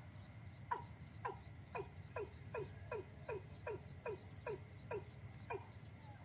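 Watercock (cúm núm) calls: a steady series of short downward-swooping notes, about two to three a second, coming a little faster toward the end.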